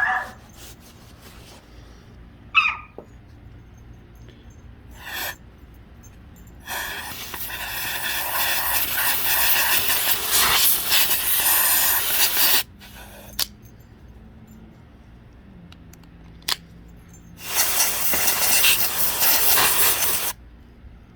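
Aerosol can spraying into an out-the-front knife's mechanism: one long hissing blast of about six seconds, then a second of about three seconds. Short sharp clicks and snaps come at the start and between the blasts.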